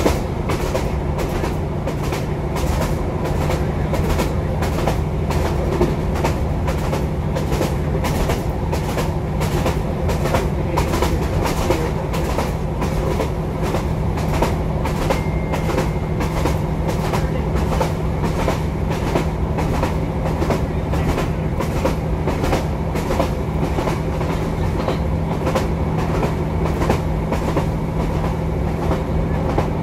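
Diesel multiple unit train running at speed, heard from inside the carriage: a steady engine and wheel rumble with the wheels clicking over rail joints about twice a second.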